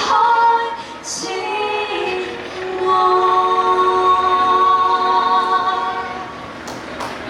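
Female street singers' voices, amplified through handheld microphones and small portable speakers, singing a Cantonese pop song. They end the phrase on one long held note that fades out about six seconds in.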